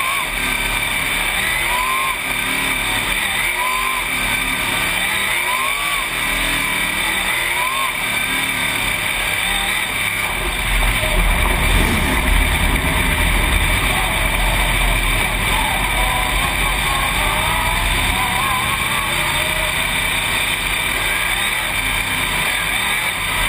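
Dirt-track race car's engine heard from inside the cockpit while on track. For the first several seconds its pitch swells up and down about every two seconds; from about ten seconds in, a heavier low rumble joins and it gets a little louder.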